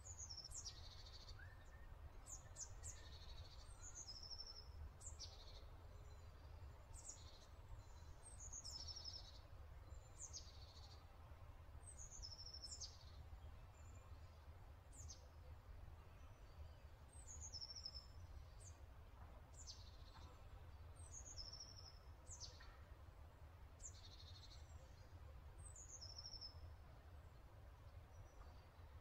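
Faint, high bird chirps: short descending calls repeated every second or two, over a low steady hum.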